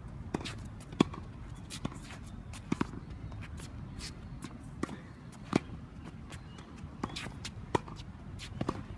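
Tennis balls struck by racquets and bouncing on a hard court in a short, quick rally: sharp single knocks every half second to second and a half, with shoes shuffling on the court surface between shots.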